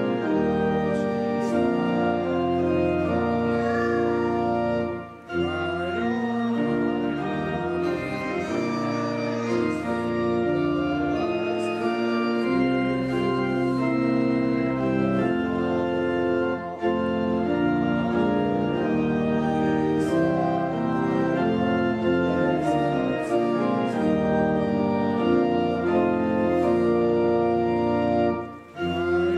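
Church organ playing sustained chords, with short breaks between phrases about five seconds in and shortly before the end.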